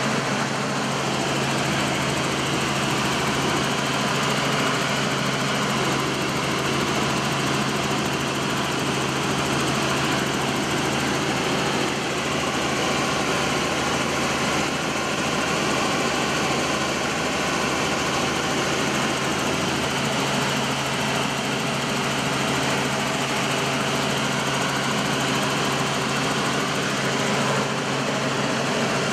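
Helicopter engine and rotor noise heard from inside the cabin in level flight: a steady drone with a low hum under it.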